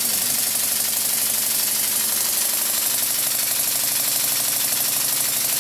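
Single-cylinder model steam engine running fast on compressed air: a rapid, even beat of exhaust puffs and mechanical clatter over a steady hiss of air.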